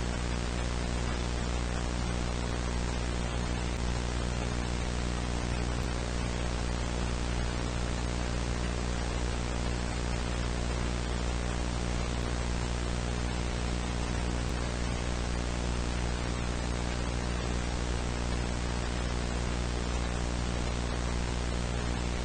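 Steady hissing static with a low electrical hum beneath it, unchanging throughout: the dead-air noise of an analog broadcast or tape with no signal.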